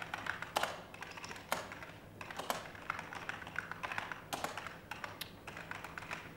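Typing on a computer keyboard: sharp key clicks at an irregular pace, in short runs with pauses.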